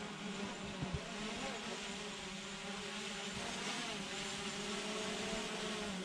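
Steady buzzing hum of a quadcopter drone's propellers in flight, its pitch wavering slightly.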